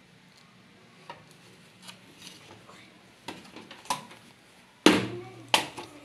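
Plastic clicks and knocks from a washing machine's control-panel housing being handled and worked loose, with two louder knocks near the end.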